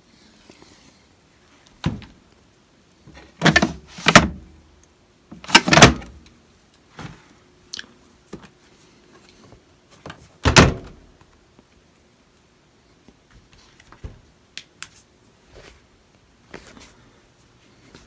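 Maytag front-load washer door being handled and pushed shut: a handful of separate thumps and knocks, the loudest about ten and a half seconds in, with light clicks between them.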